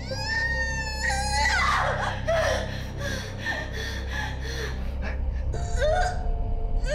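A woman in labour screaming and groaning with the pain of pushing: a long, high cry that falls away about a second and a half in, softer strained sounds, then another rising cry near the end. A low steady drone runs underneath.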